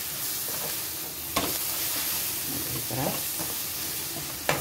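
Onion-tomato masala with spice powders sizzling in a non-stick kadai while a spatula stirs it. A sharp knock of the spatula against the pan comes about a second and a half in, and another near the end.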